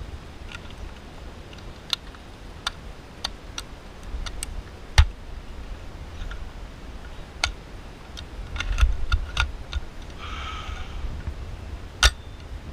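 Irregular sharp clicks and knocks from handling an Echo1 M28 airsoft sniper rifle and its magazine, over low rumble. The loudest click comes about five seconds in, and another comes near the end.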